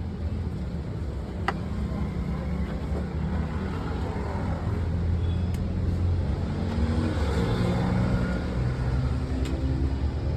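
A motor vehicle's low, steady rumble, with three sharp clicks spread through it.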